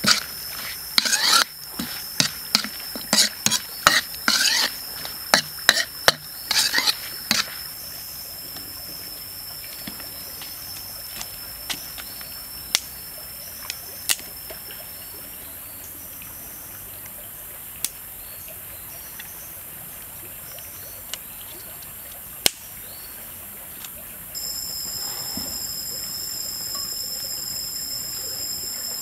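Metal spatula scraping and clanking against a wok while noodles, squid and vegetables are stir-fried, a quick run of strokes lasting about seven seconds. After that only occasional light taps, and near the end a steady high-pitched whine sets in.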